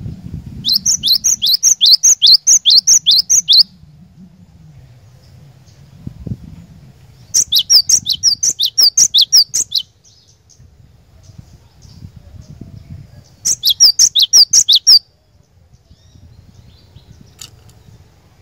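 Cinereous tit singing: three bursts of quickly repeated high, downslurred notes, about four a second, each burst lasting one to three seconds.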